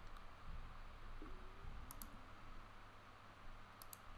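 Faint clicks of a computer keyboard and mouse: two pairs of short, sharp clicks about two seconds apart, over a steady low hum and hiss.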